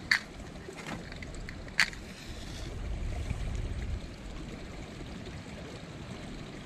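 Two short, sharp scratches about a second and a half apart: a match being struck to relight a small camp stove. Underneath is the steady rush of a creek.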